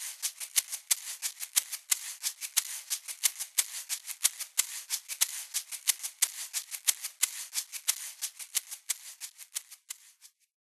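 Dense, irregular crackling clicks, about six a second, with no low rumble beneath them, thinning out and fading away near the end.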